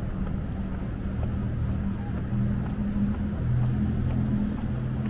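City street traffic, with a motor vehicle's engine running close by as a steady low hum that wavers slightly in pitch.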